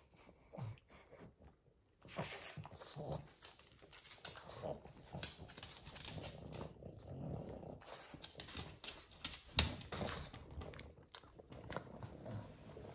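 Pugs sniffing and licking at the blanket with noisy breathing and small wet smacking clicks, starting after about two seconds; one louder click about ten seconds in.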